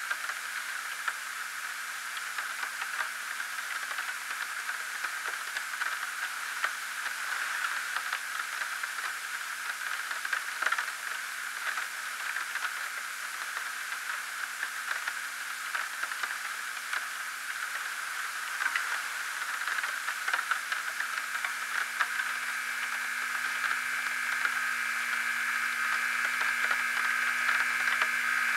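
Steady static hiss with a low, steady hum underneath and scattered faint crackles, getting a little louder near the end.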